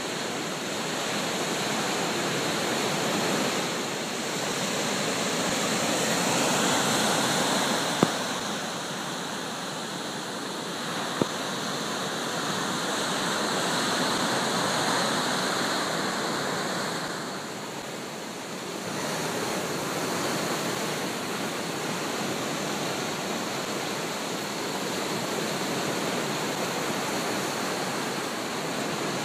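Surf breaking and washing up a sand and pebble beach, a steady rush that swells and eases every few seconds. Two brief sharp clicks come about eight and eleven seconds in.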